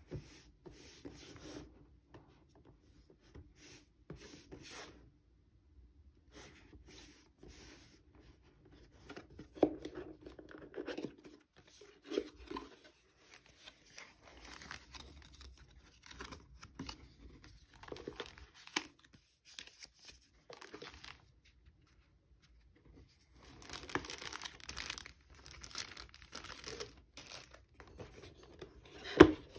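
Cardboard lens box being opened by hand: flaps and inner tray sliding and folding, paper inserts and a plastic-wrapped booklet rustling, in irregular spells with short pauses. A few sharp knocks of the box against the wooden table, the loudest near the end.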